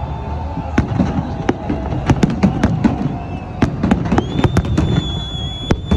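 Fireworks going off in a rapid, irregular run of sharp bangs and crackles over a low rumble. A steady high tone joins in about four seconds in.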